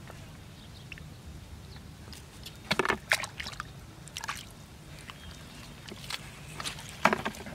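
Hands sloshing and squishing through shallow muddy water while fishing by hand, with bursts of sharper splashes about three seconds in and again near the end.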